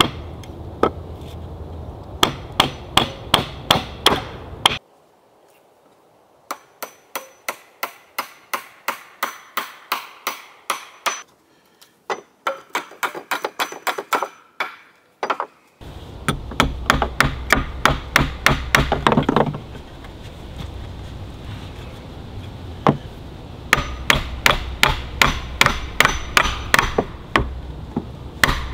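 Claw hammer driving nails into pallet wood, in runs of sharp strikes at about three a second with short pauses between runs.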